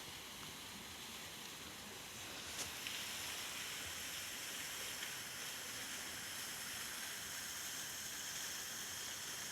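Faint, steady hiss of rushing water from a mountain waterfall, with a small tick about two and a half seconds in.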